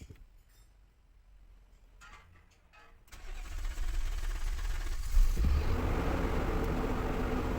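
Nissan Patrol Y62's 5.6-litre V8 cranking for about two seconds, catching about five seconds in, then running at a steady idle. This is the test start after its fuel pump has been replaced.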